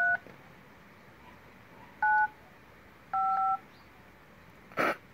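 Phone keypad dialing tones: three two-tone beeps as number keys are pressed, the third held a little longer. A short noise follows near the end.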